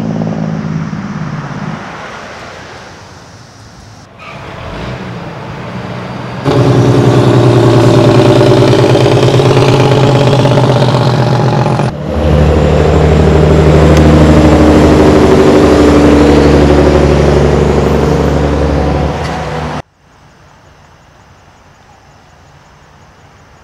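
Diesel semi-truck engines passing close by and pulling hard, with steady deep engine tones. The sound cuts abruptly several times, and is loudest through the middle. It ends suddenly, leaving faint road noise for the last few seconds.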